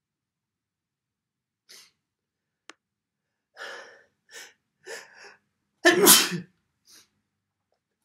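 A man's sneeze, brought on by tickling the nose. A few short breaths build up for about two seconds, then comes one loud sneeze about six seconds in.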